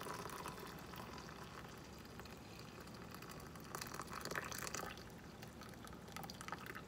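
Hot mulberry-leaf tea pouring in a thin stream from a metal pot into a glass measuring cup: a faint, steady trickle and splash of liquid.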